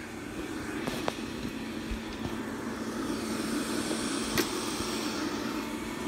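Robit V7s Pro robot vacuum running on carpet, a steady whir of its motor and brushes that grows slowly louder. A few light knocks and one sharp click about four seconds in come from shoes being picked up off the floor.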